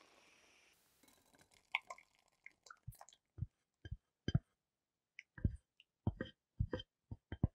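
Thick cooked red-berry compote plopping and splatting into a metal mesh sieve as it is poured from the saucepan, a dozen or so irregular wet squelches. A faint hiss from the bubbling pot comes first and stops about a second in.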